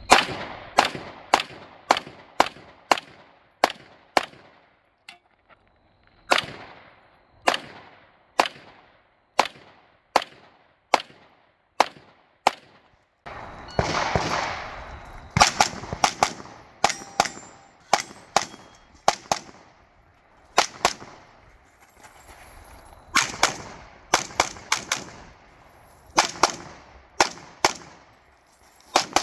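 Competition racegun pistol fired in rapid strings, shots a third to half a second apart, with short pauses between strings as the shooter moves between targets.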